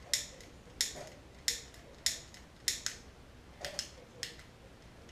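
Shimano Altus M310 8-speed trigger shifter being clicked by hand through its gears: a series of sharp clicks, some in quick pairs.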